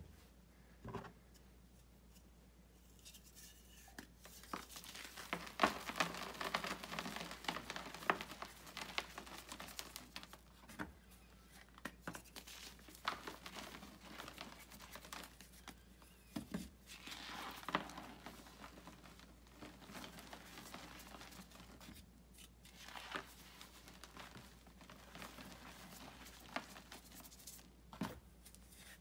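Blocks of gym chalk being crushed by hand, crunching and crumbling with sharp cracks as pieces break and powder sifts down. The crunching starts a few seconds in and comes in clusters, thickest for several seconds early on and again about halfway through.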